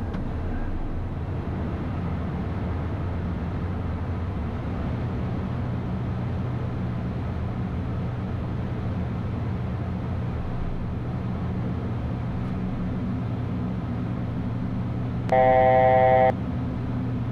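Steady in-flight cockpit noise of a Beechcraft Premier I: airflow and its twin turbofan engines, a low drone that shifts slightly higher about five seconds in. Near the end a loud electronic alert tone sounds for about one second.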